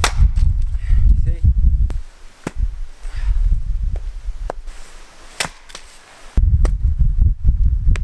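Swedish axe splitting a log on a chopping block: a sharp crack right at the start, then further cracks and knocks about two and a half and five and a half seconds in. Wind buffets the microphone with a low rumble for the first two seconds and again near the end.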